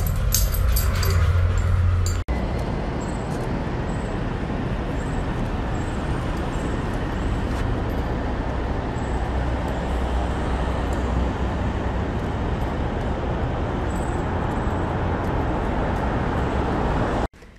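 Steady street traffic noise, an even hum of passing road vehicles. It runs for about fifteen seconds and cuts off suddenly near the end. Before it, in the first two seconds, come a few short clicks and jingles.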